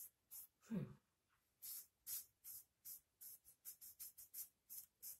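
Fingertips rubbing a gritty hibiscus face mask off the skin: faint, short scratchy rubs about two or three a second, with a brief falling vocal sound just under a second in.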